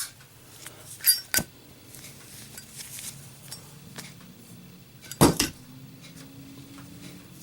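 A Zippo lighter dropped onto a hard surface twice, clattering with a metallic sound about a second in and again about five seconds in, the second drop the louder, with a few small clicks between.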